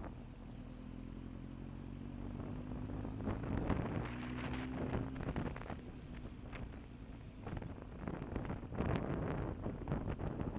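A vehicle engine running steadily, its pitch rising slightly a few seconds in, with wind buffeting the microphone in gusts.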